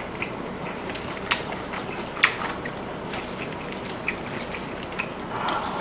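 Eating sounds: chewing, with scattered sharp clicks and crackles from handling food with chopsticks and fingers, over a steady background hiss. There is a soft rustle near the end as a lettuce leaf is handled.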